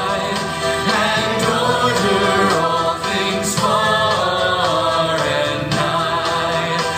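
Congregation singing a hymn together, with sustained sung notes over instrumental accompaniment.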